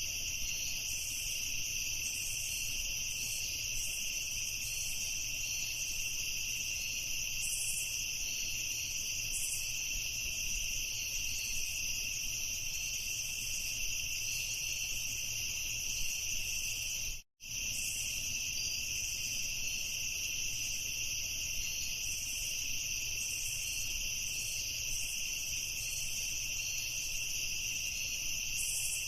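Crickets chirping in a steady, dense chorus of high pitched trills, with a low steady hum underneath. The sound cuts out completely for an instant a little past halfway through.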